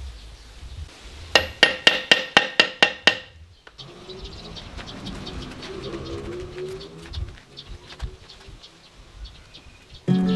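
About eight quick, ringing metallic taps in under two seconds: a metal tool tapping a freshly laid concrete block down into its mortar bed.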